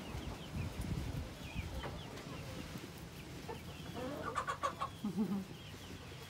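Hen clucking softly in the coop, with faint high chirps throughout and a short run of louder clucks about four to five seconds in.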